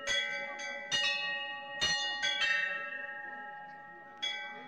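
Hindu temple bells rung by devotees, struck about six times at uneven intervals, each strike ringing on and overlapping the next.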